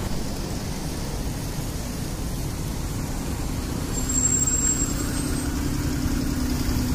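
Road traffic with a small passenger shuttle van running close by; its steady engine hum comes in about four seconds in as it draws alongside. A brief high squeal is heard at about the same time.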